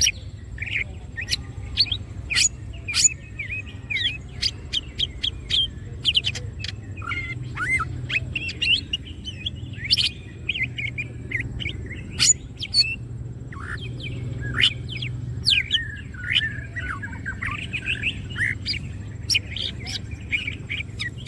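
Green leafbird (cucak ijo) singing in full voice: a dense, rapid run of sharp chirps, short whistled notes and warbled trills, over a steady low hum.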